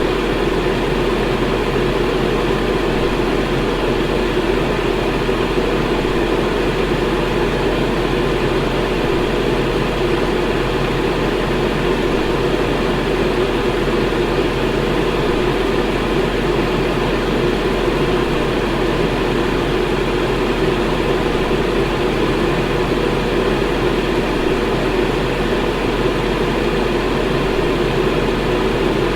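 Electric fan running steadily, a constant whooshing hum that is strongest in the low-middle range.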